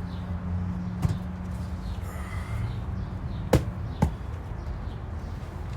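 A few sharp knocks over a steady low hum: one about a second in, then two about half a second apart in the middle.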